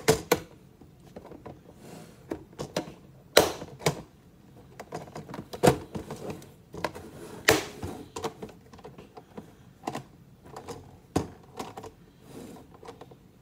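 Irregular clicks, taps and knocks of kitchen items being handled at a counter, with a few sharper knocks at the start, around three and a half seconds, about five and a half seconds and around seven and a half seconds.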